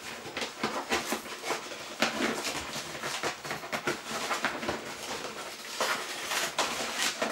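Parcel packaging being pulled open by hand: irregular crackling, rustling and tearing.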